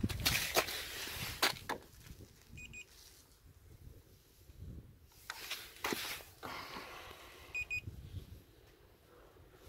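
Handheld digital coating thickness gauge giving a short burst of electronic beeps twice, several seconds apart, each time it is pressed to the car's paint and takes a reading. Handling clicks and rustles of the gauge and the phone fall in between.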